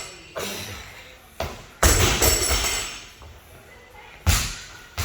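Heavy thuds and slams of workout equipment hitting the gym floor and wall, several in irregular succession with a cluster about two seconds in, over faint background music.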